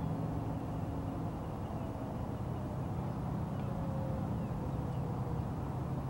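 A distant outdoor warning siren, faint, slowly winding down in pitch over about four seconds, heard over a steady low hum.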